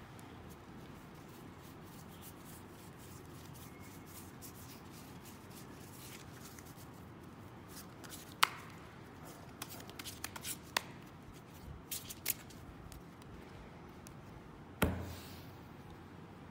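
A deck of playing cards being shuffled and handled by hand: a run of sharp card snaps and clicks from about halfway in, then one louder thump near the end as the deck is set down on the table.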